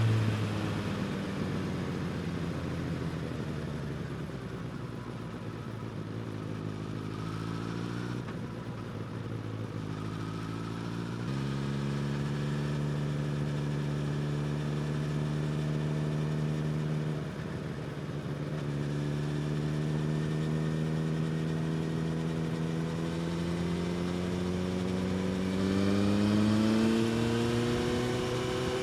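Suzuki GSX-S1000 inline-four engine with a slip-on exhaust, on the move: the revs fall off throttle at the start, jump up with a downshift about eleven seconds in, then climb slowly as the bike is pulled through the last third.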